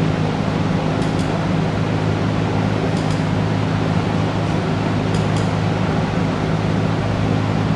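Steady low mechanical hum, with a few faint short clicks about one, three and five seconds in.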